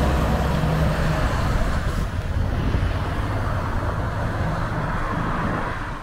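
Scania R540 truck driving in road traffic: a steady low engine hum under tyre and traffic noise. The hum is strongest for the first second and a half.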